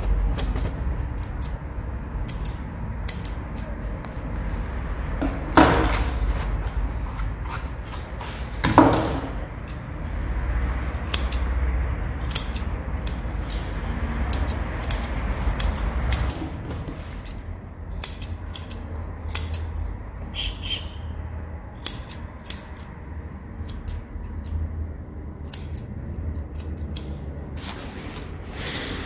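Curved grooming shears snipping the hair from between a dog's paw pads: many quick, irregular snips, with two louder knocks about six and nine seconds in over a low steady rumble.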